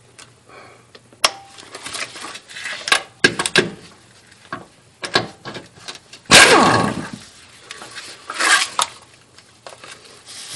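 Metal tools and sockets clinking and clanking against a car's underside while bolts are undone. About six seconds in, a power wrench runs on a bolt in one loud burst, its motor pitch sliding down as it spins to a stop.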